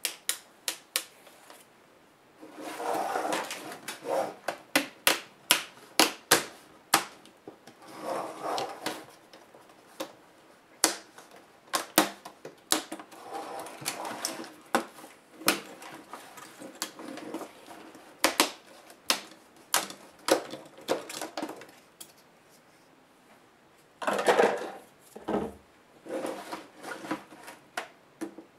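Plastic front bezel of a Gateway laptop screen being pried off the display lid: a long run of sharp clicks and snaps as its clips let go, with scraping and handling of the plastic in between and short quiet pauses.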